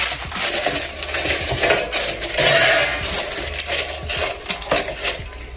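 Small objects clattering and rustling as they are handled, with many small clicks and a louder scraping rustle about two and a half seconds in.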